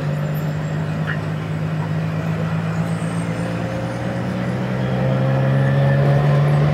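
A motor vehicle's engine running with a steady low hum. About halfway through it rises slowly in pitch and grows louder toward the end.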